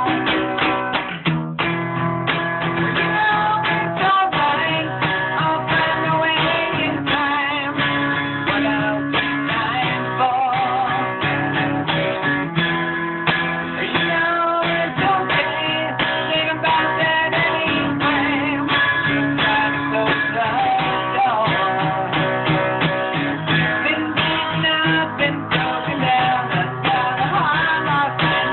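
Acoustic guitar strummed and picked continuously, which the player thinks is slightly out of tune. Recorded through a phone, the sound is dull with no treble.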